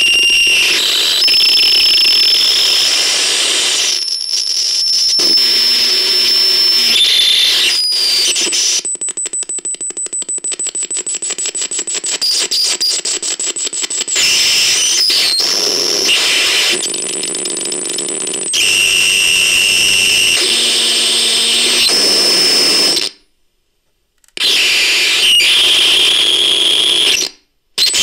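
Electronic noise from a homemade sound device: harsh static and buzz with steady high whistling tones, switching abruptly between textures. In the middle there is a stretch of rapid even pulsing, and near the end it cuts out suddenly twice.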